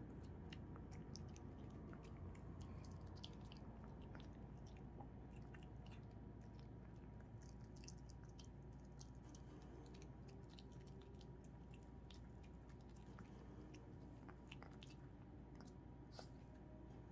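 Pomeranian puppy chewing a small handmade treat: faint, irregular little clicks and smacks of its teeth and mouth.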